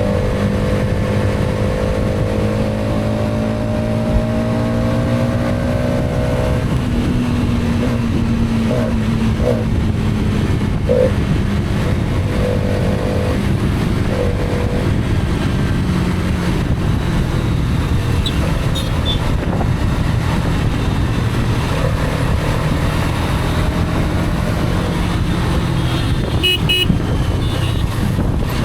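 Hero Karizma XMR's single-cylinder engine running under way, with heavy wind and road noise. The engine note holds steady for about the first six seconds, then fades under the wind. Several short horn toots sound between about nine and fifteen seconds in, and a few high beeps come near the end.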